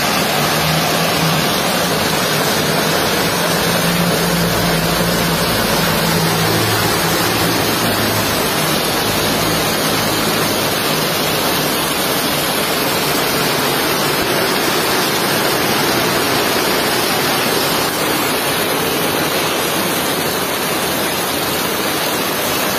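Torrential downpour on a street: a loud, dense, unbroken hiss of heavy rain.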